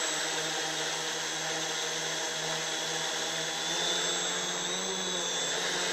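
Homemade quadcopter's four electric motors and propellers running steadily, a hum with a high whine, as the drone sits on the grass, not yet lifting off.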